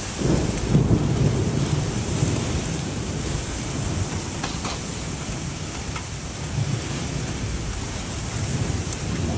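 Steady rain falling, with a low rumble of thunder building just after the start and fading over the next couple of seconds.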